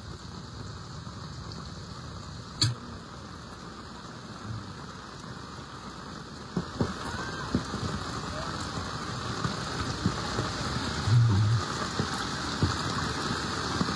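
Steady rain with the wash of floodwater, growing louder in the second half, with a sharp click a couple of seconds in and a few low thumps near the end.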